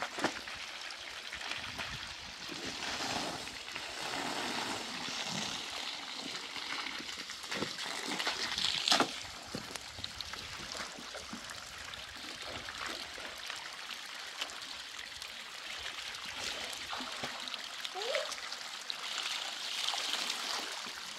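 Water trickling and splashing, with scattered knocks and one sharp, louder knock about nine seconds in, and a brief rising squeak later on.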